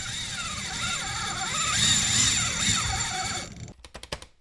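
Spinning reel's drag screaming as a fish pulls line off: a loud, steady high whine that cuts off about three and a half seconds in. A few quick sharp clicks follow near the end.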